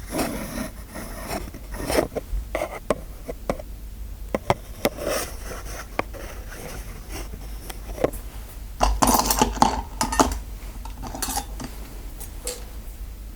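Close-miked ASMR scraping, clicking and light tapping of small hard objects. There are many short clicks, and a longer stretch of scraping about nine seconds in.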